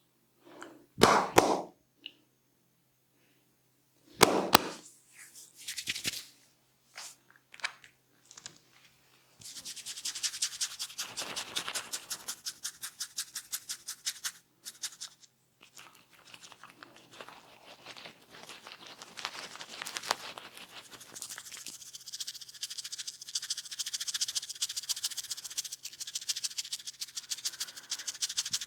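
Hands massaging a head: after a few louder scattered rustles and knocks, fingers rub and scratch rapidly through the hair and scalp in a fast, even rhythm starting about a third of the way in.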